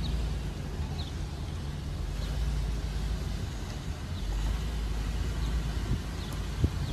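Steady low rumble of a car driving along a city street, with faint high chirps about once a second and a brief knock near the end.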